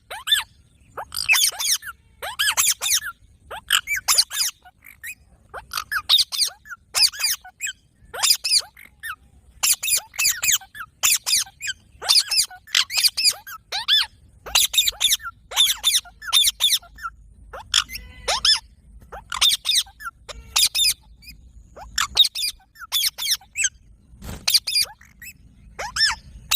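Rose-ringed parakeet (Indian ringneck) giving rapid, shrill, high-pitched calls in short clusters of several calls a second, with brief pauses between clusters.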